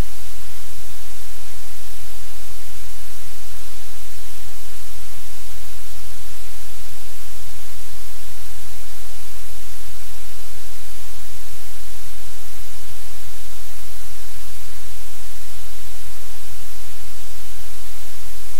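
Loud, steady hiss of static with a low hum underneath, unchanging throughout.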